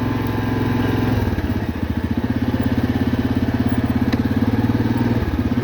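An engine running steadily close by, with a regular pulsing beat setting in after about a second and a half.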